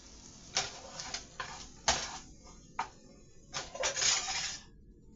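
Irregular clicks and knocks mixed with short scraping or rustling noises, as of objects being handled, with a longer scrape about four seconds in.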